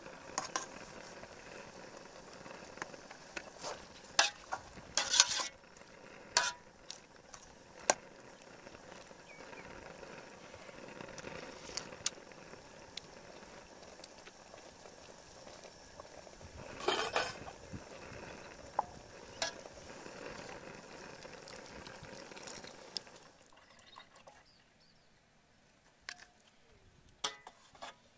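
Fish soup bubbling in an aluminium pot with a steady hiss, while a metal ladle stirs it and knocks against the pot several times. The bubbling stops near the end.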